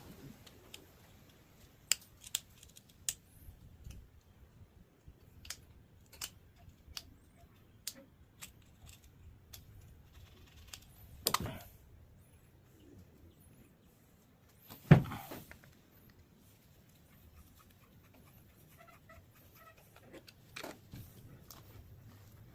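Hand tools and small metal parts clinking and tapping as the shift levers and detents are worked off a lathe headstock: scattered light clicks, a heavier knock about eleven seconds in and a louder thud about fifteen seconds in.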